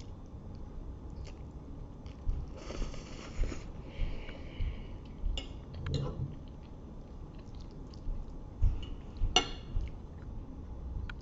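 Spaghetti being chewed close to the microphone: wet mouth clicks and soft smacks, with two short hissing rushes about 3 and 4.5 seconds in.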